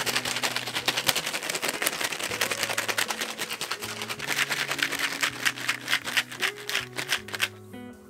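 A small plastic bag of keyboard switch parts being shaken by hand: a fast, dense rattle of many small clicks with bag crinkle, stopping shortly before the end, over lofi background music with a steady beat.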